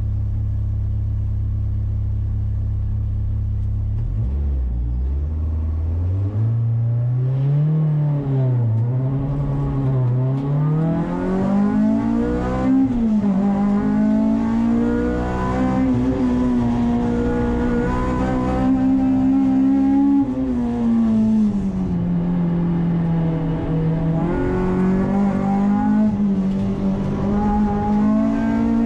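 Honda Integra Type R's 2.0-litre four-cylinder engine heard from inside the cabin, held at steady revs for about four seconds, then revving hard with its pitch climbing and dropping back again and again as the car accelerates through the gears and slows for corners.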